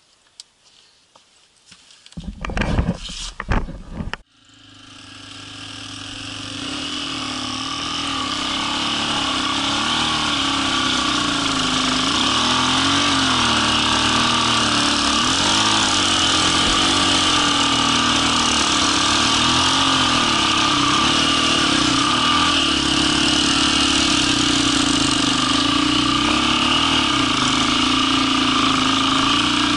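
A few loud bursts of noise, then a dirt bike's engine heard from on board while riding through sand: it fades in about four seconds in and runs steadily, its pitch rising and falling a little with the throttle.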